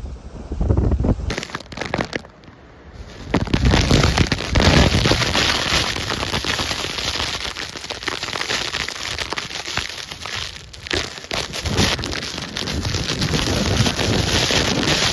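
Hurricane eyewall wind with driving rain pelting hard, a dense crackling hiss. It dips briefly about two seconds in, then comes back loud.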